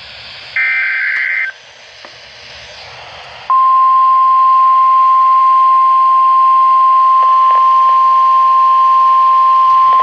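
NOAA Weather Radio Emergency Alert System test broadcast heard over a receiver's hiss. About half a second in comes a one-second warbling burst of SAME digital header data, then static. From about three and a half seconds a single steady 1050 Hz warning alarm tone sounds without a break.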